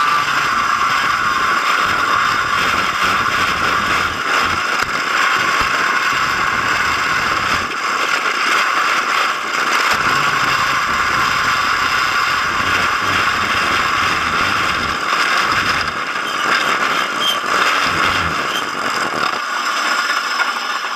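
Racing kart at speed on the track, heard from a camera on its nose: the engine running steadily with a gusty wind rumble on the microphone, fading out near the end.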